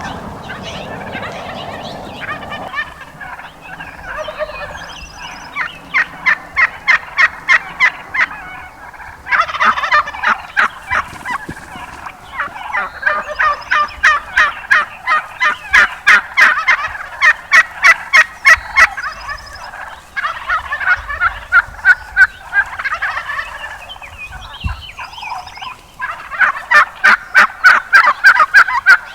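Gould's wild turkeys calling in runs of loud, evenly spaced yelping notes, about three or four a second, each run lasting a few seconds and starting up again several times.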